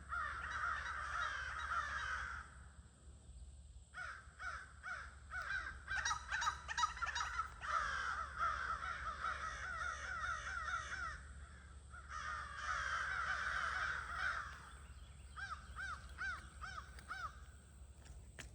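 A flock of crows cawing at an evening roost gathering: many overlapping harsh caws in bouts, with short lulls. Near the end the calling thins to a few separate caws.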